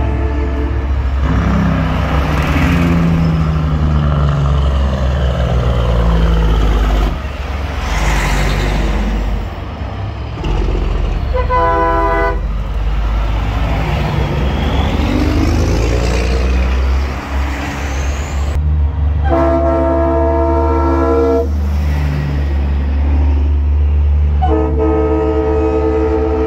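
Big-rig semi-trucks passing in a convoy, their diesel engines rumbling, with air horns blasting: a short blast, then a longer one, then another near the end.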